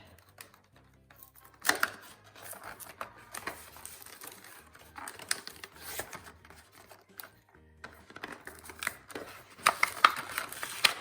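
Toy packaging being handled and pulled open: crinkling and tearing in irregular bursts, busiest near the end.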